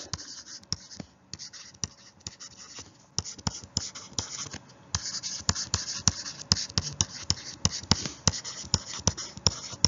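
Irregular clicks and taps with scratchy rustling, as of a stylus worked against a tablet, getting busier and louder about halfway through.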